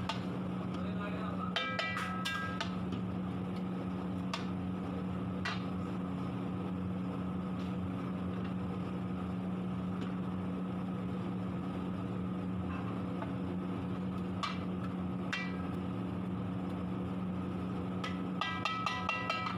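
Long-handled metal spatula stirring thick curry in a large steel kadhai, clanking and ringing against the pan now and then, with a quick run of clanks near the end. A steady low mechanical hum runs underneath.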